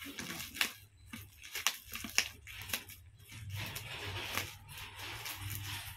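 Scissors snipping through a black plastic courier pouch: a few sharp snips in the first half, then the plastic crinkling and rustling as it is cut and handled.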